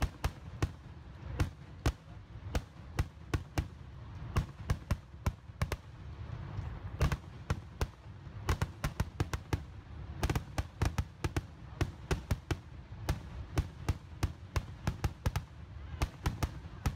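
Aerial fireworks bursting overhead in a fast, irregular string of sharp bangs and crackles, several a second, over a low rumble.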